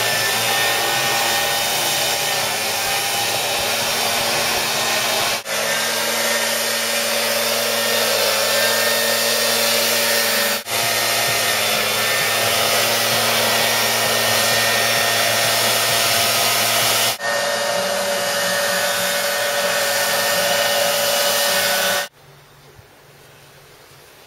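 Loud, steady rushing noise of the electric blower fan that keeps a bag-jump airbag inflated, with a few faint steady tones in it. It breaks off for an instant three times and falls away to a faint hiss about 22 seconds in.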